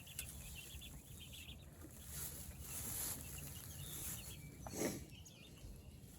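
Meat chickens peeping in quick, repeated little chirps, with a brief rustle or thud about five seconds in.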